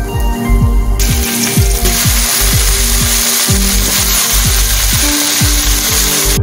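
Panch phoron (whole five-spice seeds) sizzling in hot oil in a kadai. The hiss starts about a second in and grows fuller soon after, over background music with a steady low beat.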